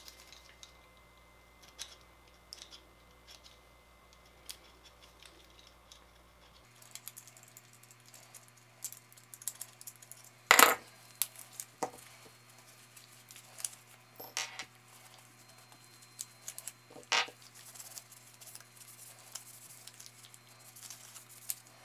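Small steel AR-15 bolt carrier parts clicking and clinking as they are handled and wiped with paper towels, with a few sharper metal knocks, the loudest about ten and a half seconds in.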